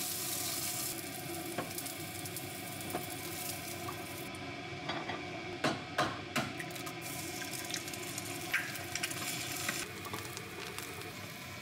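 Bite-sized pancakes and sausages frying in a nonstick pan, a steady sizzle, with a red silicone spatula working the pan. A few sharp knocks of cookware come about halfway through, and one more a little later.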